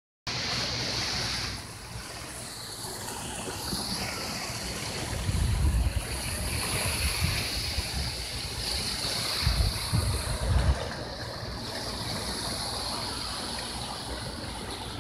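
Sea surf washing and breaking against the rocks below, with gusts of wind buffeting the microphone about five and ten seconds in.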